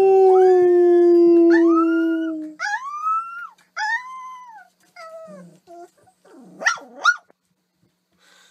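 Dog howling: one long howl sliding slowly down in pitch, ending about two and a half seconds in, then several short yowls that each rise and fall and a quick warbling call, before it goes quiet near the end.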